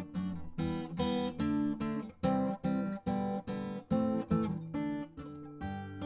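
Background music: an acoustic guitar strumming chords in a steady rhythm, about two to three strums a second.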